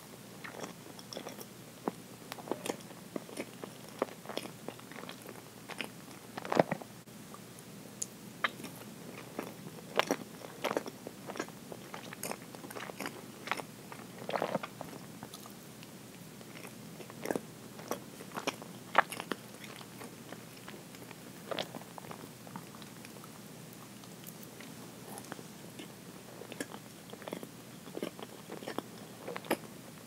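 Close-miked chewing and biting of chocolate roll cake with cream filling: scattered short clicks and smacks of the mouth.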